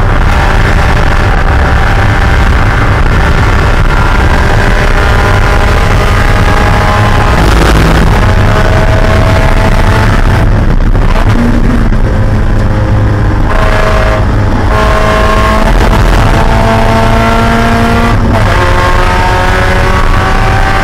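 Spec Miata's four-cylinder race engine, heard from inside the car at full throttle. Its note climbs through the revs and is broken several times by short lifts or gear changes, then climbs again.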